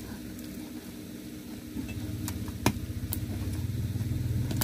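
A motor vehicle's engine hum, growing louder from about halfway through, with a few sharp snaps and clicks of a taped cardboard box being pulled open, the loudest about two-thirds of the way in.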